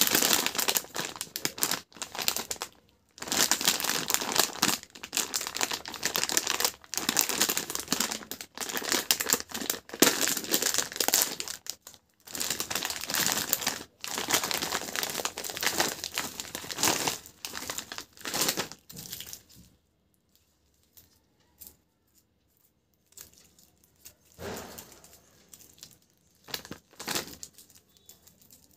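Plastic toffee bag crinkling as it is handled and opened, dense and loud for the first twenty seconds or so. After that come quieter, scattered crinkles of individually wrapped toffees being picked up.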